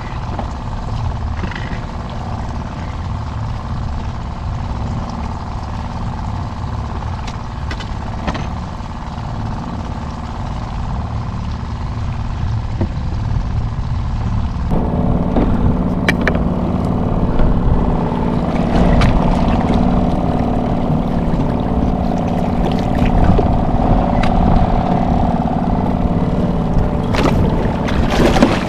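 Wind buffeting the microphone over water on a fishing kayak, a steady low rumble. About halfway through a steady hum joins it, with a few sharp clicks near the end.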